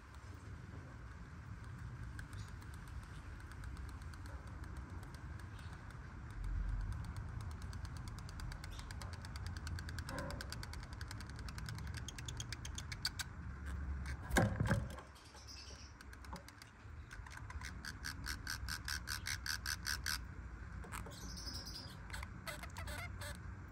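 Pet lovebirds: a long run of rapid dry clicks with a few short high chirps, and one louder knock about halfway through.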